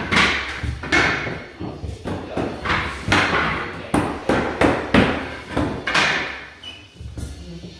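Mallet strikes on a pneumatic hardwood-flooring nailer firing cleats into the boards: about a dozen sharp bangs at an uneven pace, often two or three in quick succession, each with a brief hiss after it.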